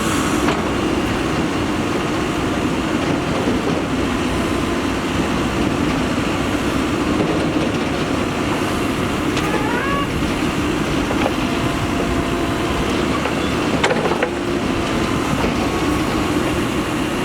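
Diesel engine of a backhoe loader running steadily while it works, with a couple of short knocks partway through and a louder one a little past the middle.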